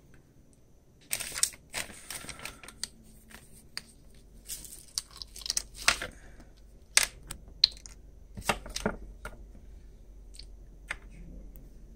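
Small hard parts being handled: sharp clicks and taps mixed with short rustles, coming in several separate bursts.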